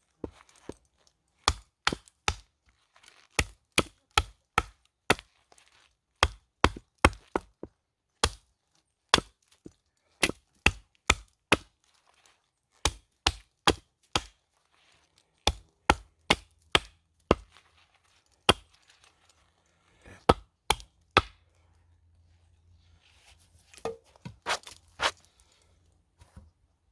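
Sharp strikes of a tool into wood, one or two a second with short pauses, like a hatchet chopping wood; they stop a little past two thirds of the way through. Soft rustling and crunching follows.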